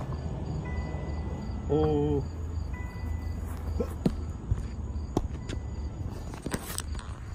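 A skateboard being jumped off and kicked about on grass gives a few light knocks and clicks over a steady low rumble and a faint, regular high chirping. The loudest thing is a short, wavering vocal sound about two seconds in.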